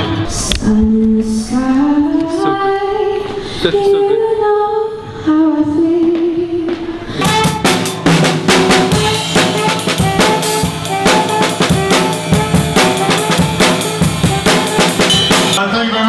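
Live band music: a sliding melody line for the first several seconds, then a drum kit comes in about seven seconds in, playing a busy beat under sustained pitched tones.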